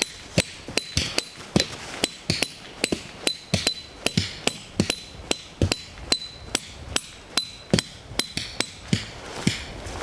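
Hammer driving a tent peg into frozen ground: an even series of sharp strikes, about three a second, each with a light ring. The hard, frozen soil makes the peg slow to go in.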